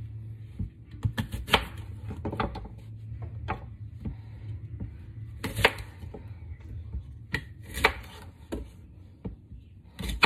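Chef's knife slicing through a fresh apple and knocking down onto a wooden cutting board: irregular sharp knocks, a dozen or so spread unevenly, over a steady low hum.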